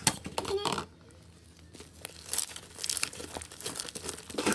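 Fluffy slime squished and stretched between the hands, crackling and popping in quick little clicks as trapped air escapes, sparse at first and then a dense run in the second half.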